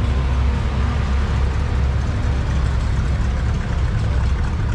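Engines of several classic cars running at idle as they roll slowly past at walking pace, a steady low engine sound.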